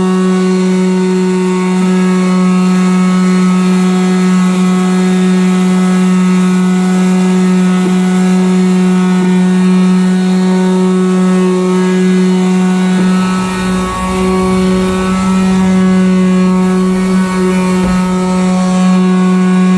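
Handheld electric sander's motor running at a steady high speed, sanding surface rust off a truck frame, with a rougher, rumbling stretch a little after halfway.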